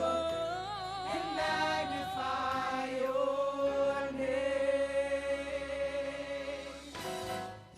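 Gospel worship singing: voices hold long notes with vibrato and wordless runs over a steady low bass. The sound dips briefly near the end.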